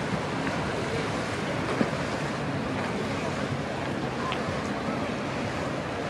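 Steady wind noise on the microphone over choppy water lapping, with one short sharp tap a little under two seconds in.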